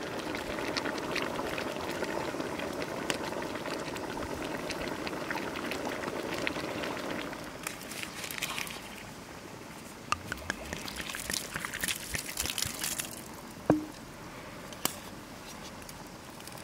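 A large pot of broth bubbling at a steady boil. After about seven seconds it gives way to quieter scattered clicks and rustles of garlic and onions being handled in a wooden bowl, with one sharper knock near the end.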